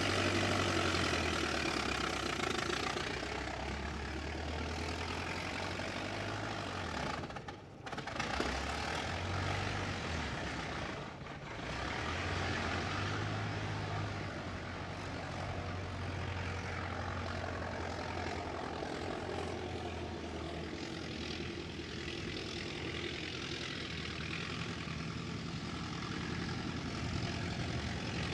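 A 1920s American car's engine running steadily, with a low engine note that shifts in pitch now and then. The sound drops away briefly twice, about seven and eleven seconds in.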